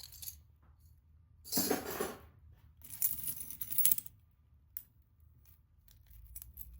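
Pieces of metal jewelry clinking and jangling together as they are picked through by hand, in two short bursts about a second apart, with a few light clicks.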